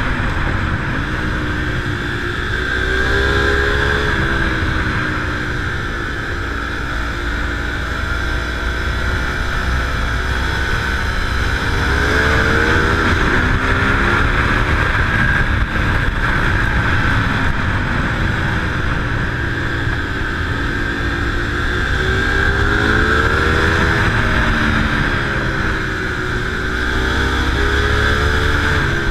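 Sport bike engine heard onboard. Its revs rise and fall several times as it is ridden through a series of bends.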